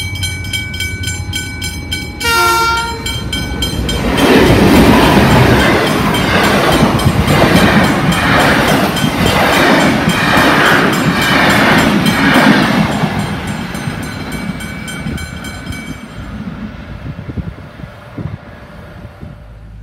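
Level crossing bells ringing steadily while an approaching passenger train gives a short horn blast about two seconds in. The train then passes close by with a loud rush and a rhythmic clatter of wheels over rail joints, which fades after about thirteen seconds. The crossing bells stop a few seconds later.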